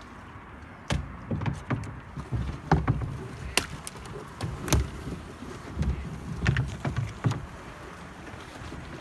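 Kayak hull pushing through bare branches: twigs scraping and cracking against the hull, with irregular knocks and thumps. It starts suddenly about a second in and dies away near the end.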